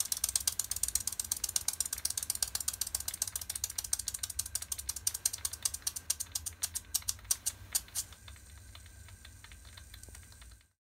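Hand-built brass horizontal live-steam stationary engine running down. Its quick, even ticking beats slow and stop about eight seconds in, leaving a faint steady hiss.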